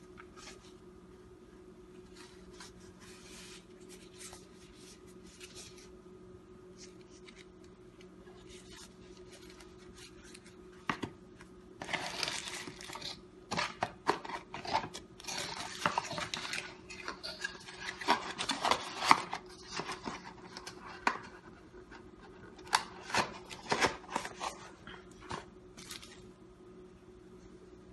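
Hands handling a cardboard phone box and its paperboard inserts: rubbing, sliding and scraping with sharp taps and clicks. The noise is sparse at first and busy through the second half, over a faint steady hum.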